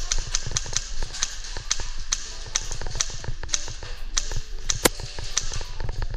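Airsoft guns firing single shots, a string of sharp clicks and snaps coming irregularly a few times a second, with one sharper crack a little before the five-second mark.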